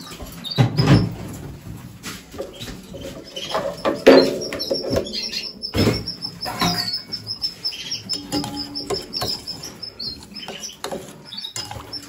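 Canaries chirping and twittering throughout, with a few louder knocks and rustles from close by, about a second in, around four seconds and near six seconds.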